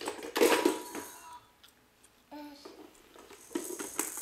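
A toy gumball machine being worked: a rattling clatter with a ringing tone as a gumball is released, a short child's vocal sound, then another clatter near the end.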